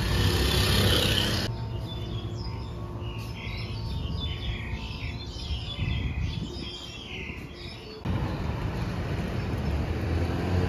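Street traffic noise, then small birds chirping repeatedly for about six seconds in a quieter stretch, then street traffic again near the end.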